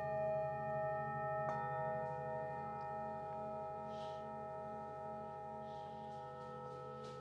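Metal singing bowls ringing with several overlapping sustained tones, the low tone pulsing slowly as it beats; a felt mallet strikes another bowl about a second and a half in, adding a fresh set of tones that ring on and slowly fade.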